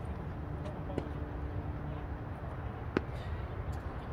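Tennis ball struck by racquets during a rally: a fainter hit about a second in and a sharper, louder hit about three seconds in, over a steady low background rumble.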